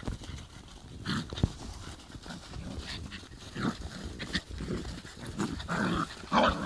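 Pointer and Hungarian vizsla puppies making a run of short dog sounds, several in quick succession, loudest near the end.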